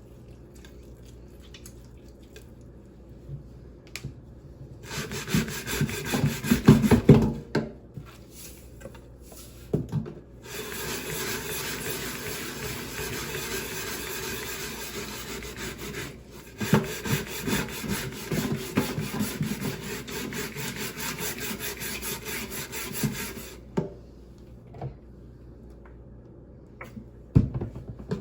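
Lime and coarse salt scrubbed across a wooden chopping board in rapid back-and-forth strokes. The scrubbing comes in three stretches, the longest several seconds each, with quiet pauses between.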